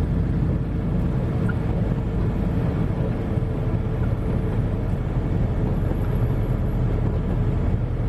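Steady, deep vehicle noise heard from inside a car's cabin: the engine running, with an even hum and no change in pace.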